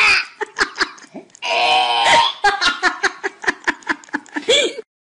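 A person laughing and giggling. A longer laugh comes about a second and a half in, then a fast run of short giggles until it cuts off near the end.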